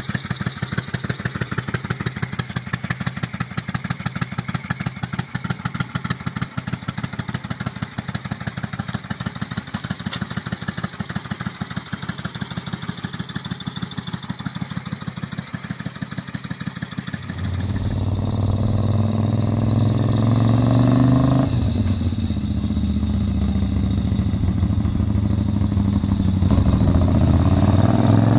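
Moto Guzzi V50's air-cooled 90-degree V-twin idling with an even, pulsing beat. About 17 seconds in, the V50 riding on the road, louder, its revs climbing, dropping sharply a few seconds later, then climbing again near the end.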